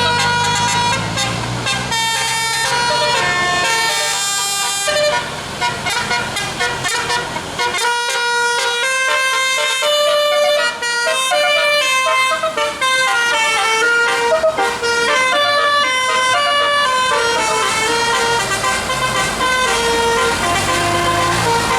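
Indonesian bus 'telolet' horn, a set of air-horn trumpets switched in sequence, playing a fast tune of short stepped notes without a break. A low rumble sits under it at the start and again near the end.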